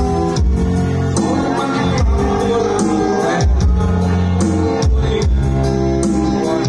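Loud music with a heavy bass line and a steady beat.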